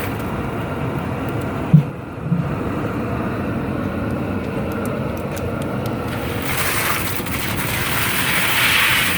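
Steady rushing roar of an outdoor propane burner firing under a crawfish boil pot. A single loud low thump comes about two seconds in, and a brighter hiss swells near the end.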